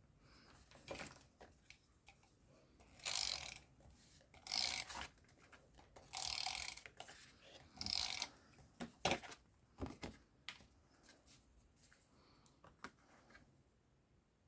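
Paper and card being handled while a stamped card panel is stuck down: four short rustling, scraping bursts in the middle of the stretch, among small clicks and taps, dying away near the end.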